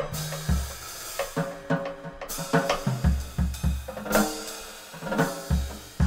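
Background jazz music from a small combo, with the drum kit to the fore: a busy run of snare and cymbal hits over low notes.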